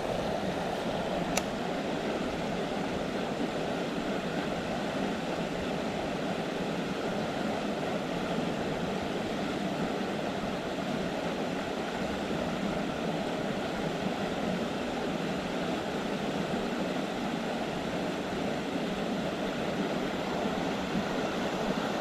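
Steady rush of flowing water from a mountain stream and its small cascade, with a single faint click about a second in.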